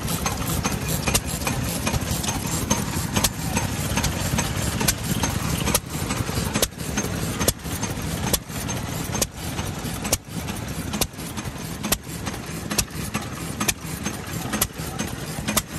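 Vintage Japanese single-cylinder kerosene stationary engine (hatsudoki) with spark ignition, running. A steady low rumble is cut by a sharp firing pop a little more than once a second, most evenly in the second half.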